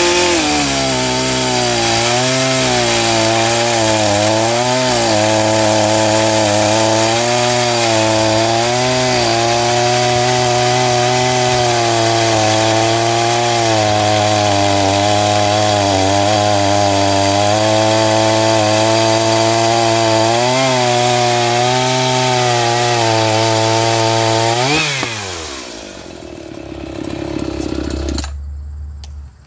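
Stock Echo CS-4910 two-stroke chainsaw cutting through a cherry log at full throttle, its engine pitch dipping and recovering under load. About 25 seconds in it revs up briefly as the chain comes free of the wood, then winds down and goes quiet near the end.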